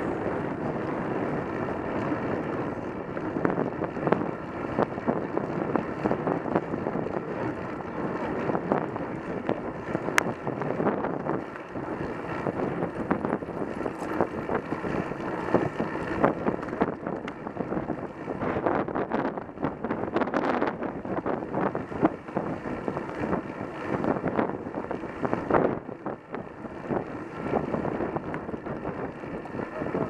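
Wind buffeting the microphone of a bicycle-mounted action camera, with road-bike tyre and road noise underneath, as a muffled, uneven rush. There are a couple of sharp clicks near the middle.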